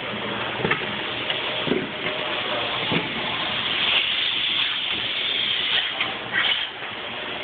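Robot work cell running: a steady air hiss from the pneumatic vacuum gripper, loudest in the middle, with scattered clicks and knocks as the Denso SCARA robot arm swings its suction-cup gripper.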